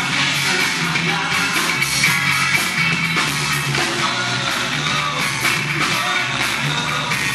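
Live band playing a rock song, loud and dense, with a steady drum beat under the guitars.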